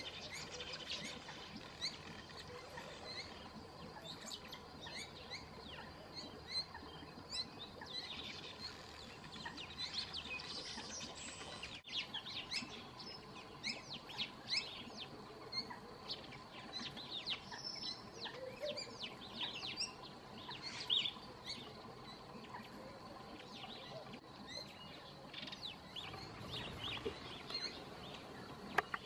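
Small birds chirping: many short, high notes, some rising and some falling, overlapping throughout.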